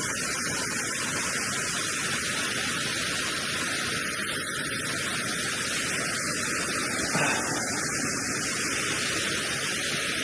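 Waterfall on a woodland stream, rushing water making a steady, even hiss, with a brief small knock about seven seconds in.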